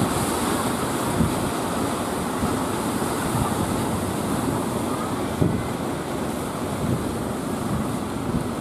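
Steady rush of breaking surf and churning sea water, with wind buffeting the microphone.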